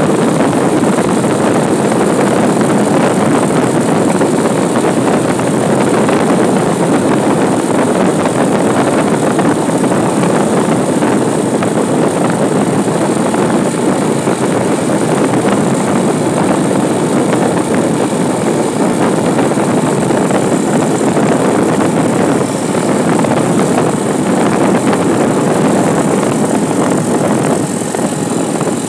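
Steady rush of wind and road noise from a vehicle moving along a paved road, buffeting the microphone, with no distinct engine tone and no breaks.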